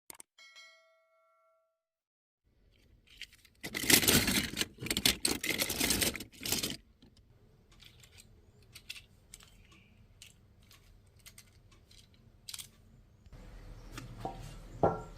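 A brief ringing chime, then about three seconds of crinkling, clattering handling noise, followed by scattered light clicks.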